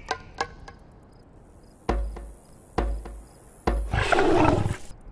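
Film sound effects: a few light clicks, then three deep booming hits about a second apart, then a lion growling harshly for about a second near the end.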